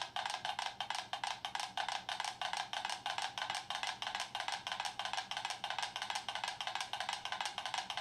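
Five mechanical pendulum metronomes ticking at once, a dense, uneven stream of sharp clicks: they are not yet beating in step.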